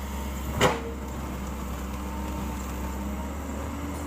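Excavator's diesel engine running steadily as the machine works its way across the river, with one sharp knock a little over half a second in.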